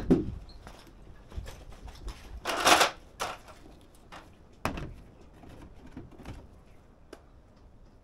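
A sheet-metal rain head being handled and offered up against a metal gutter: scattered knocks and clicks, a louder scraping rush about two and a half seconds in, and a sharp knock a couple of seconds later.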